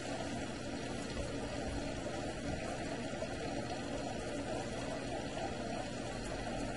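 Steady low hum with a rush of water from an aquarium pump running, unchanged throughout.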